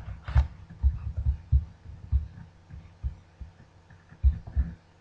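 Irregular low, muffled thumps, a few a second, weaker through the middle and louder again near the end, over a faint steady hum.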